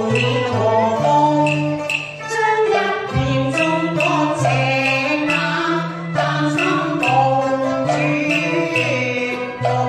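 Cantonese opera song sung by a woman through a microphone, over a Chinese instrumental accompaniment with a regular clicking beat.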